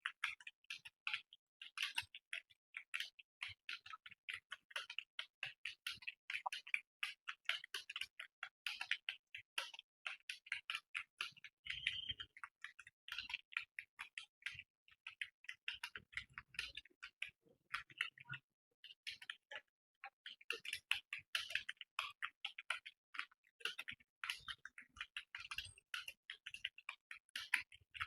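Computer keyboard being typed on at speed during a typing test: a fast, uneven stream of key clicks with a few short pauses.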